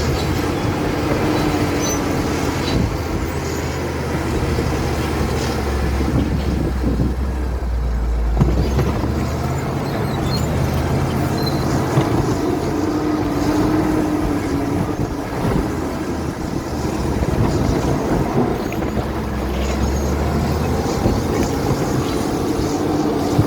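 Caterpillar D7 bulldozer's diesel engine working, its note swelling and easing several times as the load comes and goes.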